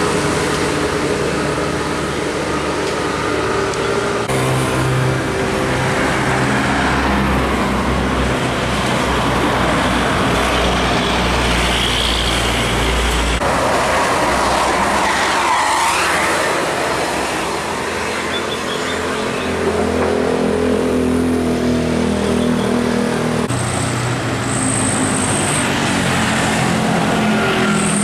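Tour buses driving past one after another, their diesel engines running, with the sound changing abruptly several times as each passing is cut to the next.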